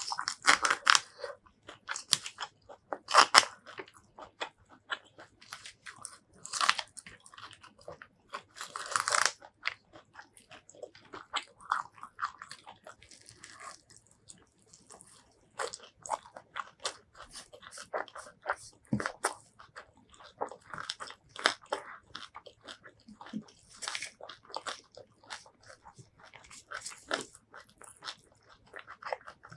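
Close-miked eating sounds: sharp, irregular crunching bites and chewing of raw leafy greens with curried rice. The loudest crunches come in the first ten seconds, then the chewing goes softer.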